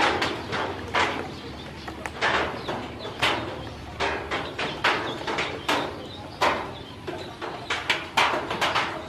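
A brood of newly hatched ducklings peeping, many short calls overlapping at several a second.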